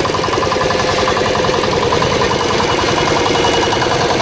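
Small single-cylinder air-cooled diesel engine, new, running steadily with a rapid even beat of firing pulses.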